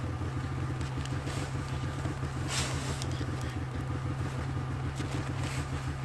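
Snowmobile engine idling steadily, with a snow shovel scraping into packed snow twice, about two and a half seconds in and again near the end.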